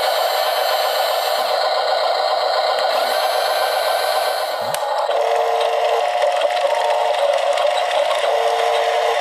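Background music of sustained tones, which shifts to a new pattern with a short repeating note about halfway through.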